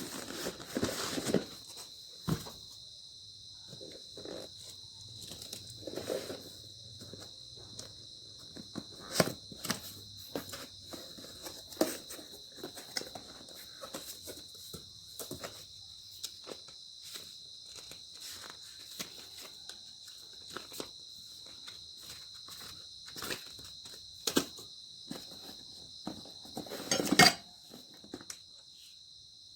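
Steady high chirring of insects, with scattered clicks, taps and rustles of objects being handled; a louder clatter comes near the end.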